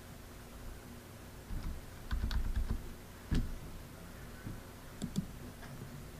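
Scattered clicks and taps from cards being handled and laid on a table, with a few quick button presses on a calculator, louder around the middle.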